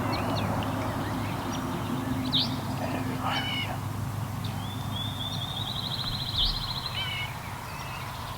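Small birds calling in the open: scattered short chirps, then a long fine trill lasting about two seconds midway, over a steady low hum.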